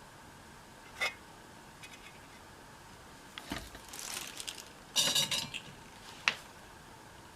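Small metal tools and parts clinking and clattering on a workbench: one clink about a second in, some lighter rattling in the middle, the loudest run of clinks about five seconds in, and one sharp click shortly after.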